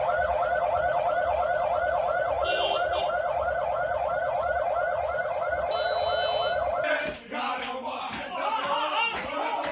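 A vehicle siren sounding a fast warble, about four rises and falls a second, cutting off about seven seconds in. It gives way to a group of men chanting and shouting.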